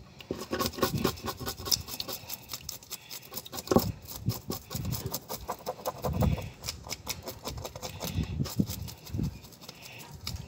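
Kitchen knife scraping the scales off a small pot fish on a wooden cutting board: a rapid run of short scratchy strokes, several a second, with occasional dull knocks.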